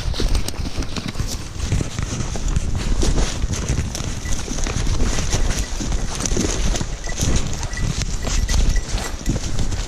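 Hurried footsteps in rubber boots through dry leaves, twigs and brush, full of crackling and snapping, with clothing and the camera rubbing and knocking.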